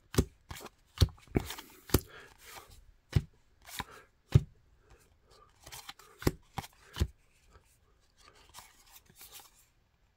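Paper trading cards being flipped through by hand, snapping and sliding against one another: a string of sharp card clicks with light rustling between, thinning out to faint rustle after about seven seconds.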